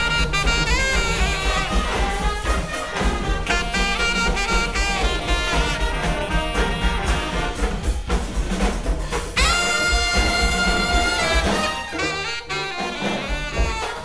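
Brass band playing jazz: saxophone, trumpets and trombone in dense, shifting lines over a steady low pulse. About nine seconds in, a horn holds one long high note for about two seconds, and the band thins out briefly near the end.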